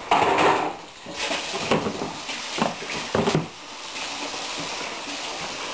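Scrunchions, diced fat pork, sizzling in a frying pan: a steady hiss, with a louder burst of handling noise at the start and a few short knocks.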